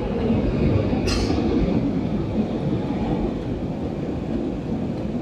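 Jet airliner cabin noise at cruise altitude: a steady low rumble of engines and rushing air, with a brief hiss about a second in.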